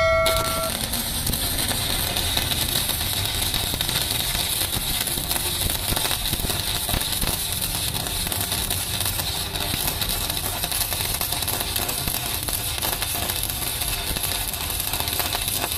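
Stick (arc) welding arc sizzling steadily as a steel electrode is run along a crack in a steel truck chassis rail. A short bell-like chime at the very start.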